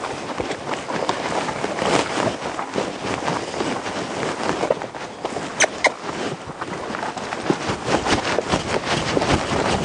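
Hooves of two horses walking on sandy dirt: a steady run of soft thuds and scuffs.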